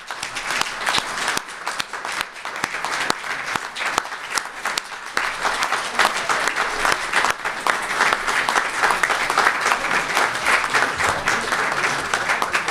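An audience applauding: many people clapping in a room, sustained and fairly loud.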